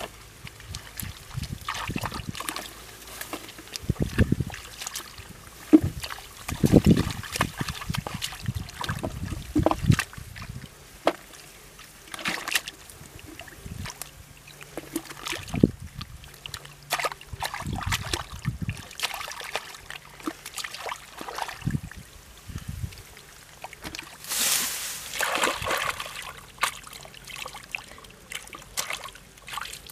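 Hands sloshing, scooping and splashing through shallow muddy water while groping in the mud for fish: irregular small splashes and slaps, with one longer, louder splash about three-quarters of the way through.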